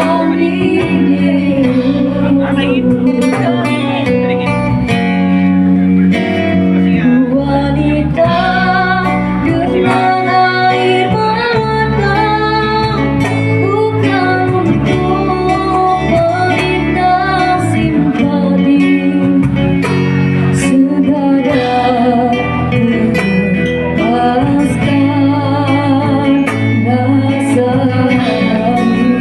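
Two women singing a Malay pop song as a duet through microphones and a PA. A live band backs them on electric keyboard, acoustic guitar and cajon.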